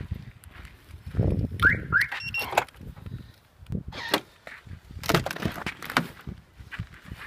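Car alarm on a Lada Priora being disarmed: two short rising chirps about a second and a half in, then a brief beep. Footsteps crunch in snow around it, with a louder crunching clatter about five seconds in.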